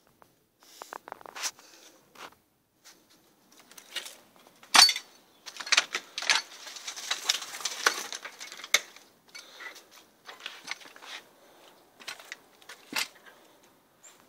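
Handling and movement noise from someone exploring with a handheld camera: irregular sharp clicks and knocks, the loudest about five seconds in, followed by a few seconds of rustling.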